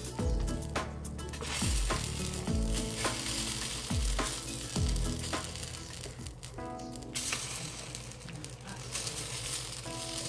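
Moong dal chilla batter sizzling on a hot tawa while a metal spatula spreads and shapes the small pancakes.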